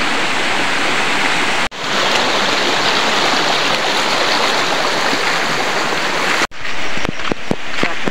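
Shallow stream rushing over rocks, a steady hiss of water that drops out for an instant about a second and a half in. About six and a half seconds in, the sound cuts to a quieter hiss with a run of short, crisp knocks and ticks.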